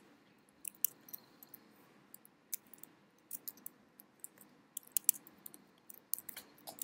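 Computer keyboard being typed on: irregular short key clicks, some in quick runs.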